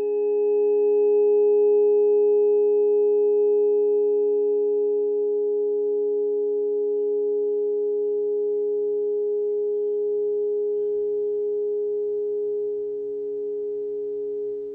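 Electronic harmony of steady pure sine tones for the planets Mercury and Uranus, held together without change: a strong middle tone over a lower one, with a fainter higher tone above. Faint high tones fade out about five seconds in.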